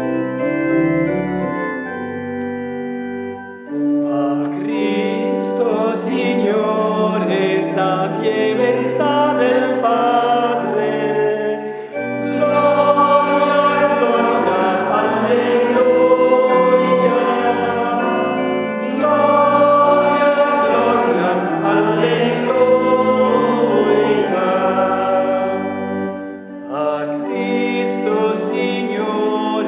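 Church organ playing alone for the first few seconds, then voices join in singing a hymn with the organ accompanying: the closing hymn after the dismissal of the Mass.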